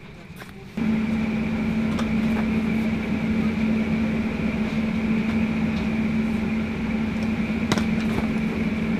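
Steady mechanical hum of a ship's cold-storage refrigeration and fan machinery with a strong low tone. It starts abruptly about a second in, and a single knock comes near the end as boxes are handled.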